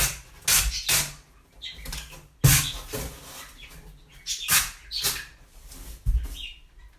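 Packing tape being pulled off the roll and pressed onto a cardboard box in short noisy strips, about six of them, with handling noise from the cardboard in between.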